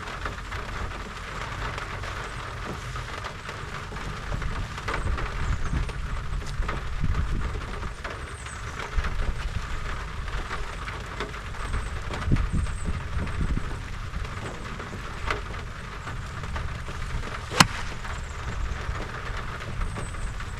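Steady low rumble with a hiss over it, and a single sharp click near the end.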